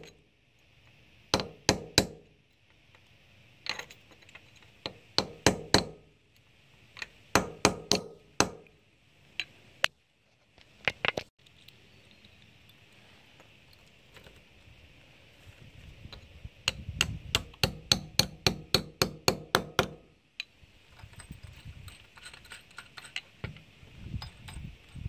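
Claw hammer tapping a steel punch to drive an anchor bolt's sleeve back into a drilled hole in brick: sharp metallic clinks in short groups of two to four with pauses. After a break of a few seconds it comes back as a faster run of about four taps a second, then a few lighter ticks.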